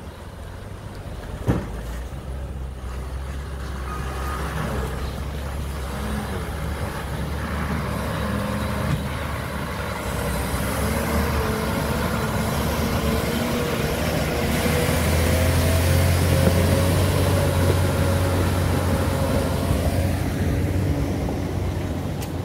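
Heavy goods truck's diesel engine running slowly as the truck crawls through a flooded, muddy road, growing louder as it passes close and easing off near the end, with a steady whine over the engine. One sharp knock about a second and a half in.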